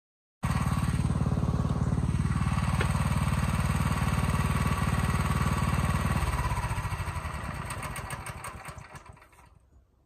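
Small petrol engine of an Orec tracked flail mower running steadily with a rapid even pulse, then from about six seconds in slowing and fading away.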